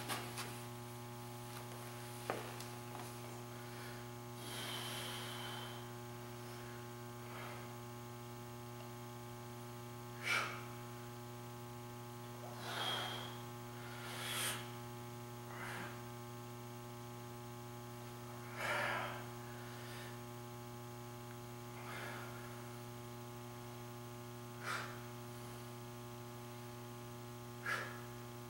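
Steady electrical mains hum, with a man's short, forceful breaths every few seconds as he works through a set of dumbbell presses.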